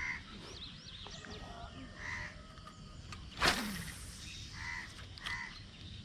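Crows cawing several times, spaced out, with small birds chirping faintly. A single sudden, louder burst of noise about three and a half seconds in.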